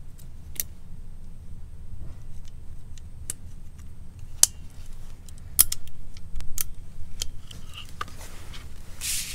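Metal hand-held eyelet punch being worked, giving sharp clicks and clacks at irregular intervals, the loudest about five and a half seconds in, with a short hiss near the end.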